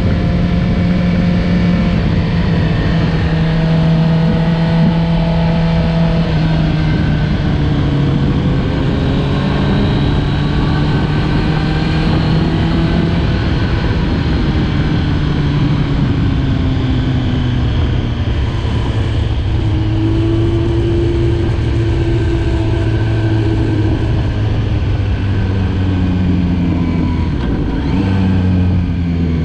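Stock 2008 Kawasaki ZX-10R inline-four engine running hard on track. Its note steps down in pitch in several stages and rises again briefly near the end.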